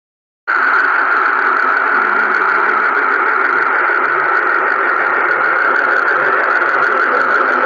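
A planet 'sound' recording: a loud, steady, hissing drone strongest in the upper middle range. It starts abruptly about half a second in.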